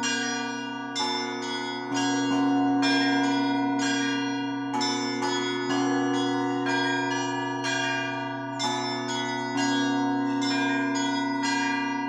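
Russian Orthodox church bells rung together in a peal: smaller bells struck in a quick repeating pattern over a deep bell that sounds about every four seconds.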